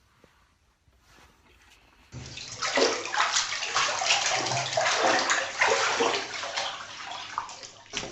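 Water splashing and sloshing, starting suddenly about two seconds in and going on unevenly.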